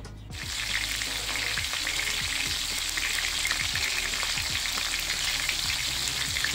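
Red bell pepper strips and garlic cloves sizzling in hot olive oil in a frying pan. The sizzle starts suddenly as the peppers go into the oil, then holds as a steady hiss with small crackles.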